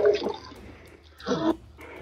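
A monster roar from a toy fight fading out, then a brief low animal grunt about halfway through, with faint clicks and knocks of plastic toy figures being handled.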